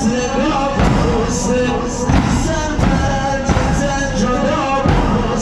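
Muharram mourning chant (noha) sung by a voice, with large bass drums struck in a steady rhythm beneath it.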